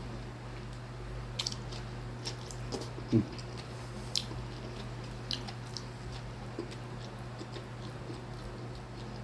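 A person eating: chewing and mouth smacks with scattered small clicks, and one short, louder low sound about three seconds in.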